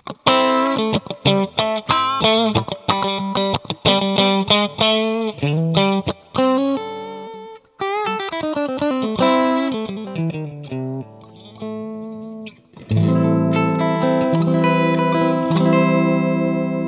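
Electric guitar, a MUSI Capricorn Fusion, played through effects: a run of quick picked single-note phrases, then about thirteen seconds in a full chord struck and left ringing.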